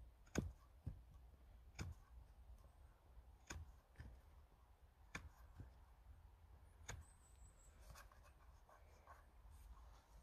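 Knife blade shaving a round tenon on the end of a birch pole: faint, short, sharp cuts at irregular intervals, about eight in the first seven seconds, then softer scraping.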